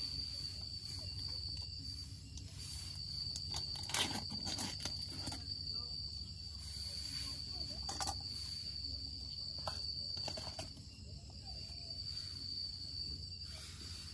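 A cricket's steady high trill runs under a low steady rumble, with occasional short clicks and rustles of things being handled close by.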